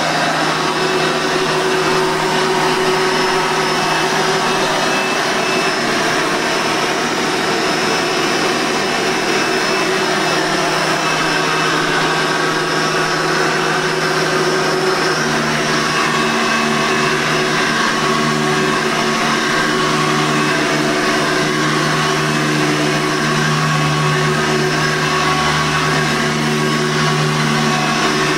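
A Hoover Tempo upright vacuum cleaner running steadily at full speed, its motor giving a constant whine. About halfway through, its tone shifts lower and fuller.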